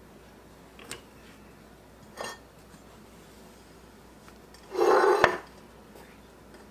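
A ceramic pie dish moved across the countertop: a scraping slide of about half a second ending in a knock, with a couple of soft clicks and rustles of pie crust dough before it.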